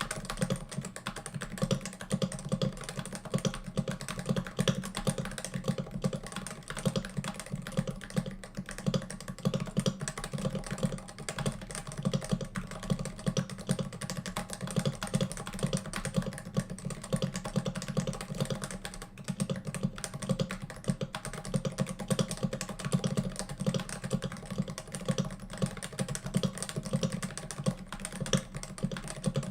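Continuous typing on a Cooler Master Novatouch TKL keyboard with Topre-type 45 g rubber-dome switches: a steady, unbroken stream of keystrokes.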